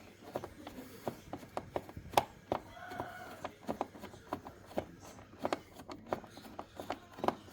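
A small hand screwdriver unscrewing the last deep-set screws from the plastic housing of a Narwal Freo robot vacuum, giving irregular clicks and taps, about two or three a second.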